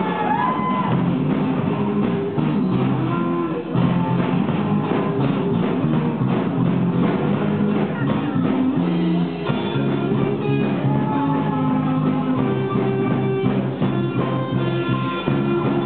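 Live rock band playing: electric guitars and a drum kit.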